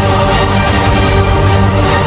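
Music track playing loudly and steadily, with a faint regular accent about every second and a half; no truck or engine sound.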